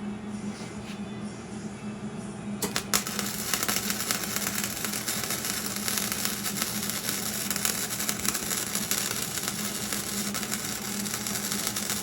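Electric arc welding on steel I-beam: the arc strikes about two and a half seconds in, with a couple of sharp pops, then crackles steadily for about nine seconds before cutting off. A steady low hum runs underneath.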